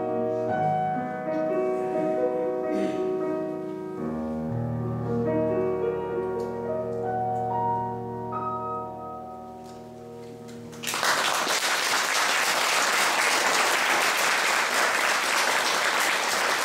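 Grand piano playing the closing bars of an aria's accompaniment, the notes dying away. About eleven seconds in, audience applause breaks out suddenly and continues.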